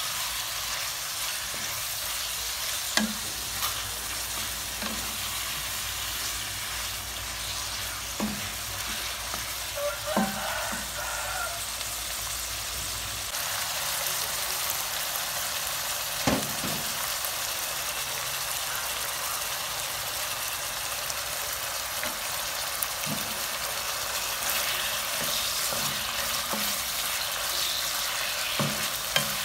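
Diced chicken sizzling in hot oil in a nonstick wok, stir-fried with a spatula that knocks and scrapes against the pan every few seconds.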